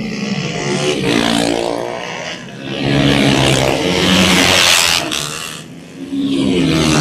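Small underbone racing motorcycles passing close one after another under hard throttle, their engines running at high revs. The sound is loudest from about three to five seconds in, dips briefly, then swells again as the next bike arrives near the end.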